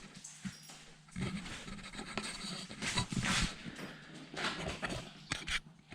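A dog panting in uneven bursts, with a couple of sharp clicks near the end.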